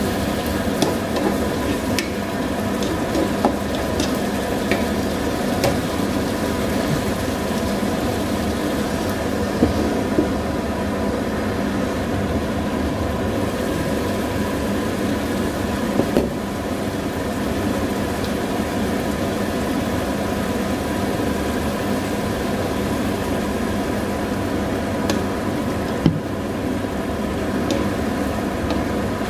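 Squid sizzling in a frying pan with sauce, with scattered clicks and scrapes of a spatula against the pan as it is stirred. A steady hum runs underneath.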